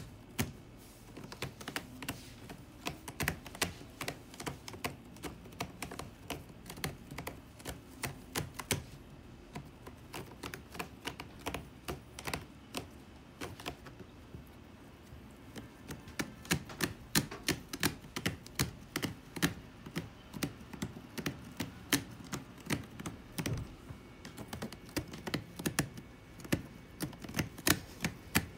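A cat's claws scratching the corrugated cardboard of a Necoichi scratcher bowl: quick runs of rasping clicks, thinning out for several seconds in the middle before picking up again.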